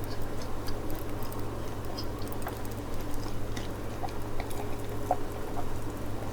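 A person chewing food, faint scattered wet mouth clicks, over a steady low hum.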